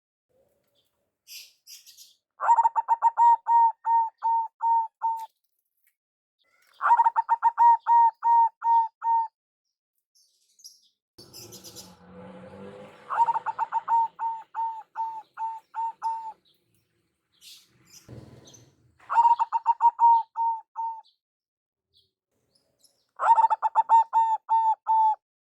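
Zebra dove calling: five bouts of rapid, staccato cooing, each a run of about eight to ten quick notes lasting two to three seconds, separated by pauses of a few seconds. Faint high chirps and a brief rustling noise fall between some of the bouts.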